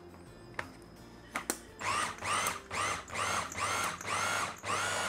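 Electric mini chopper run in short pulses, about two a second, its motor whine rising and falling with each press as it blends ground walnuts and soaked bread into a paste. The pulsing starts about two seconds in, after a few light clicks.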